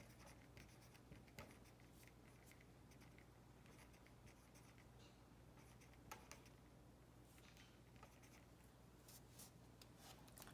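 Faint scratching of handwriting with a pen as numbers are written out in short, irregular strokes, over a steady low hum.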